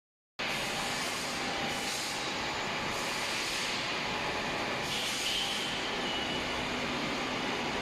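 Steady, even industrial machine noise with faint steady tones in it, starting abruptly.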